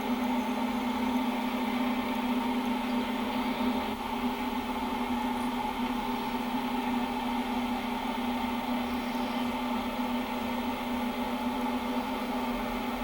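Steady hum of a car's engine and road noise heard from inside the cabin while driving.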